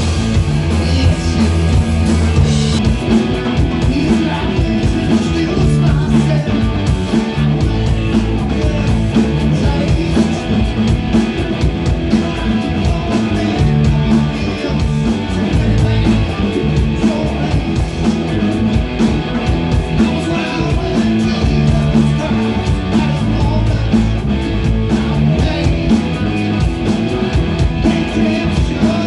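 Rock band playing live: electric guitar, bass guitar and drum kit with a steady dance beat.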